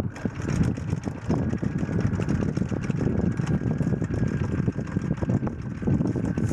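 Sailboat's inboard diesel engine, a Volvo Penta MD11C, running steadily under way, a dense, even rumble with a faint steady whine above it.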